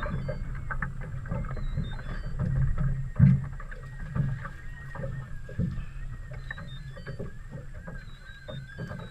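Water sloshing with irregular knocks, as of a small boat on the water, over a steady low hum; one sharp knock about three seconds in.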